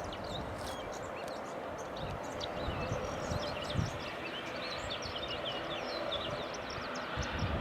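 Many small birds chirping in quick, overlapping calls over a steady background noise.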